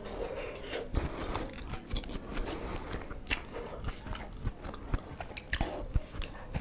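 Close-miked chewing and biting of egg curry with rice: a run of irregular short mouth clicks.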